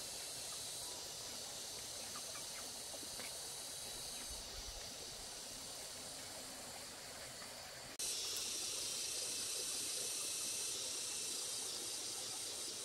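A chorus of insects chirring steadily in the surrounding vegetation, a high hiss-like drone. About eight seconds in it grows louder, with a faint pulsing trill in it.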